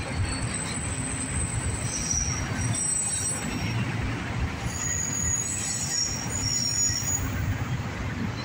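Freight train of autorack cars rolling past: a steady low rumble of steel wheels on rail, with thin high-pitched wheel squeals coming and going through the middle.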